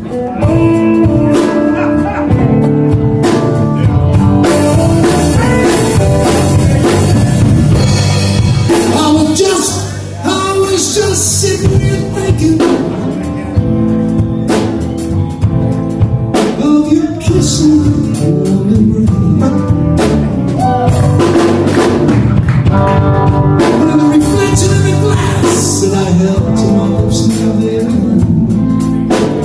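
Live blues band playing an instrumental passage, with a drum kit under a lead melody line.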